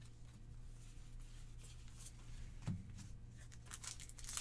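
Quiet handling of trading cards and a foil booster pack: a soft thump nearly three seconds in, then the pack's foil wrapper crinkling in the hands, growing busier toward the end. A faint low hum runs underneath.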